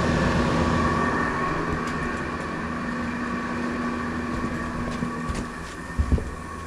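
Window air conditioner running, its compressor and fan making a steady hum with a few steady tones over a hiss of moving air; the unit is working and blowing cold. A low tone in the hum drops away about two-thirds of the way in, and a couple of knocks come near the end.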